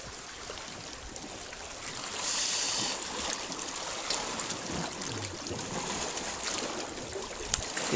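Shallow seawater washing and trickling around coral rocks at the shore, swelling into a louder wash about two seconds in.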